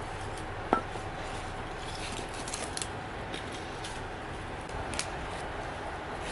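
Scattered light clicks and crackles over a steady background hiss, with one sharper click about a second in and a few quick clicks near the middle.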